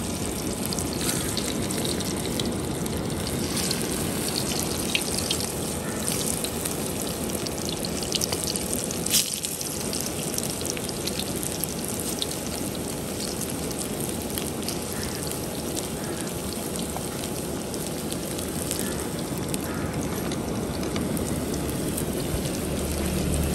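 Besan-stuffed bitter gourds deep-frying in hot oil in an iron karahi: a steady sizzle with fine crackling, and one sharp pop about nine seconds in.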